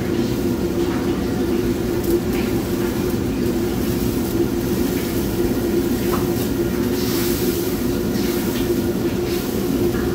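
Steady roar of a commercial kitchen's gas wok range and exhaust hood running, with a constant low hum. A few light clicks sound from the cook working at the range.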